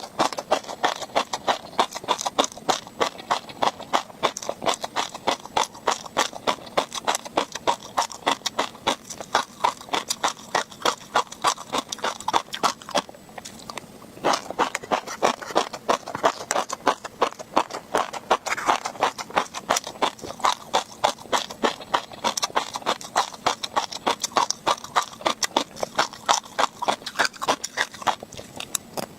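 Close-miked chewing of tobiko (flying fish roe), the tiny eggs popping and crunching in a rapid run of sharp clicks, with a short pause about halfway through.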